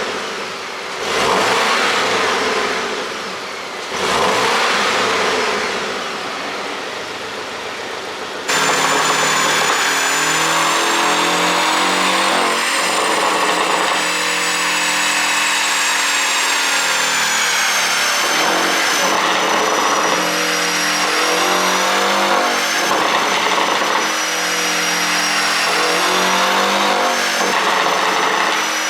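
Porsche 718's 2.0-litre turbocharged flat-four engine on a pop-tune ECU map, revving up and down for the first several seconds. After an abrupt change about eight seconds in, it runs continuously with revs rising and falling, under a high steady whine.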